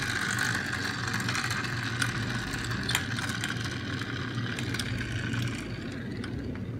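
Toy construction vehicle running with a steady mechanical hum and a few light clicks, easing off near the end.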